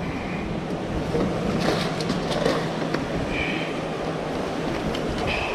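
Steady rushing noise of a flooded creek's fast current, with a few faint clicks of handling.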